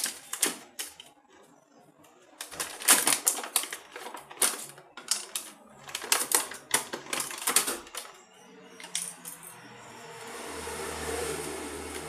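Card and plastic packaging of a tyre puncture repair kit being handled and unpacked: a run of sharp crackles and clicks that stops about eight seconds in. After that a low steady hum swells and fades.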